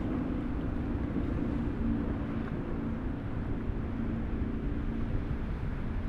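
Motor cruiser's engines droning steadily as it runs at speed through choppy water, its hull throwing spray.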